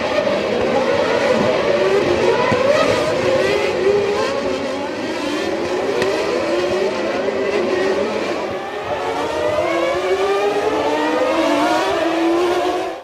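Formula One cars' V10 engines revving hard, their pitch repeatedly climbing and dropping back at each gear change, with several cars overlapping. The sound cuts off abruptly at the very end.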